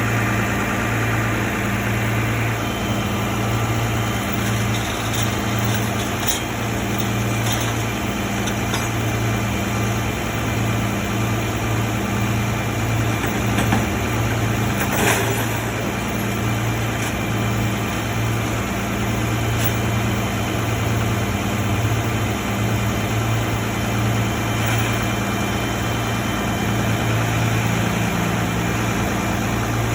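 A vehicle engine idling steadily, with a low hum and a faint throb about once a second. There are a couple of light clicks, one about six seconds in and one about fifteen seconds in.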